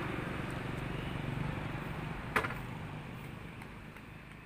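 Steady street background noise with a low hum, fading away near the end, and a single sharp click about two and a half seconds in.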